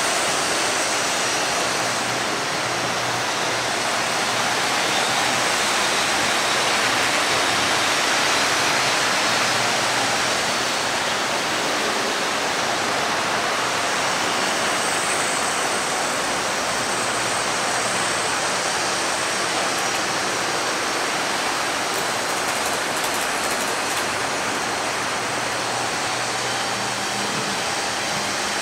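Model trains running on the layout: a steady rushing noise of wheels rolling on track, with a faint low hum underneath.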